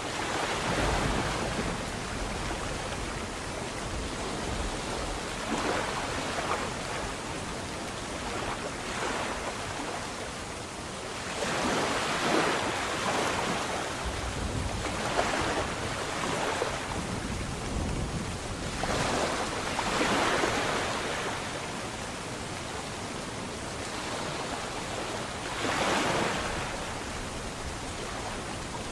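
Sea waves breaking and washing in, rising into a louder surge every few seconds over a constant background rush.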